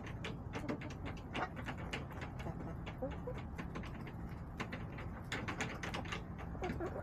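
Backyard hens clucking softly in low murmurs, over irregular sharp taps and clicks of pecking close by.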